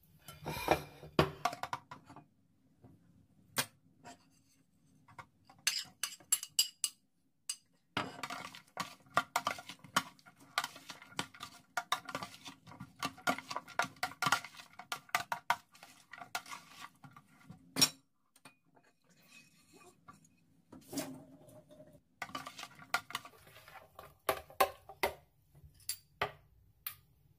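Metal spoons tossing a beef salad in a clear bowl, clinking and scraping against the bowl in several irregular bursts, the longest about ten seconds, with short pauses between.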